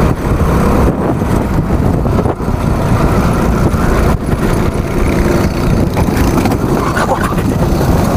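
Rental go-kart engine running at speed, heard from onboard the kart with a steady rushing noise over it.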